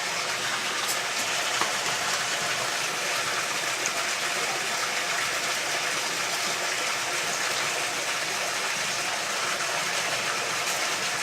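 Steady, even rushing noise with no distinct events apart from a faint click or two.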